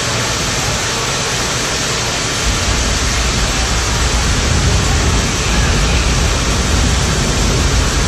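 Simulated rainforest rainstorm: a steady loud hiss of pouring rain and a waterfall. A deep rumble of thunder sets in about two and a half seconds in.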